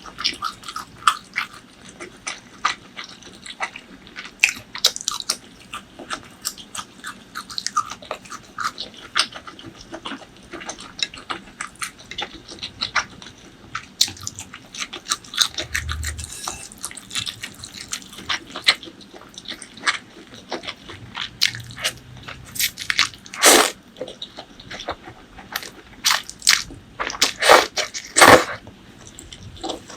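Close-miked eating: a person biting and chewing food, a dense run of short wet clicks and smacks, with a few louder bites in the last third.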